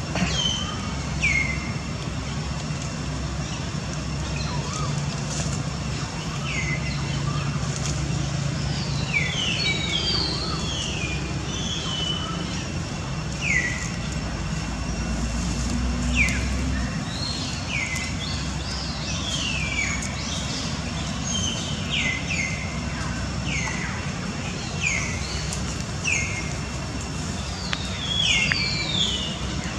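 Birds chirping: many short, falling chirps, often several close together, over a steady low rumble like a distant engine that drops away a little past halfway.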